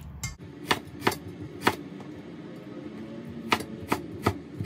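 Chinese cleaver chopping ginger on a wooden cutting board: separate sharp knocks, three spaced about half a second apart in the first two seconds, then four more in quicker succession near the end.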